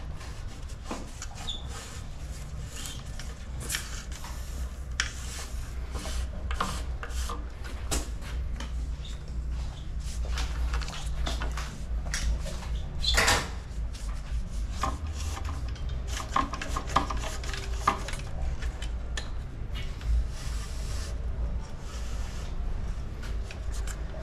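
Irregular small clicks, knocks and rubbing scrapes of tools and parts being handled on a mountain bike frame during cable-housing work, with one louder clatter about halfway through, over a steady low hum.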